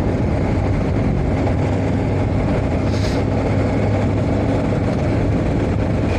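Triumph Tiger 1200 Rally Explorer's three-cylinder engine running steadily under way at about 50 km/h in fourth gear, mixed with wind and road noise. A brief sharp hiss comes about three seconds in.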